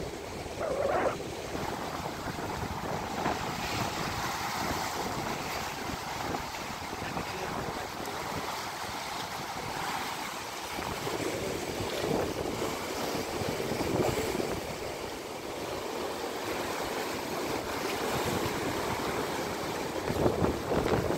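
Choppy sea water washing against a concrete jetty and its pilings, a steady rushing wash, with wind rumbling on the microphone.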